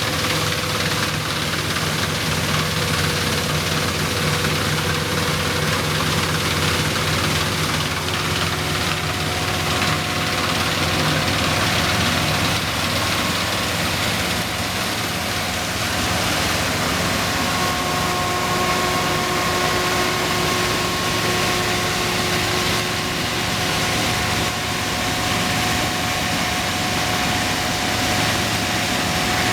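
1971 Dronningborg 900 combine harvester running steadily, its Perkins 4-154 four-cylinder diesel engine and threshing machinery giving a continuous hum with several steady whining tones.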